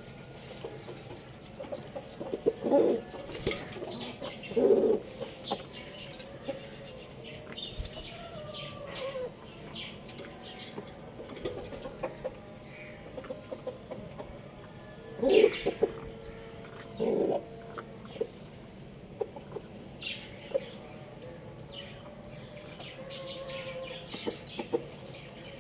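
Chickens, a rooster and a hen, clucking: a few short, low calls stand out, twice near the start and twice about two-thirds of the way through, with softer clucks scattered between.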